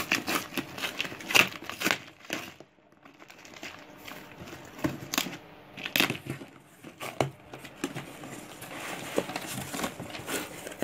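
Packing tape on a cardboard box being scraped, punctured and torn open with a ballpoint pen, in irregular scratchy crinkling strokes with a short lull about three seconds in. Near the end the cardboard flaps rustle as they are folded back.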